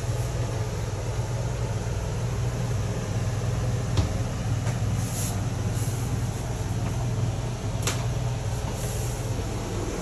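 A steady low mechanical hum, with two short clicks about four and eight seconds in.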